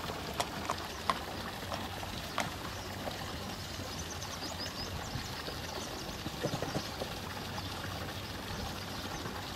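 Dutch warmblood horse's hooves striking brick paving at a walk, a few sharp clops in the first couple of seconds, over a steady rush of moving water.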